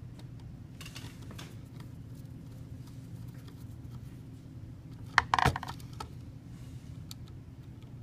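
Small metallic clicks and scrapes of a hand screwdriver tightening crimped fork terminals under a receptacle's screw terminals in a metal electrical box. There are a few faint ticks about a second in and a sharp cluster of clicks about five seconds in, over a steady low hum.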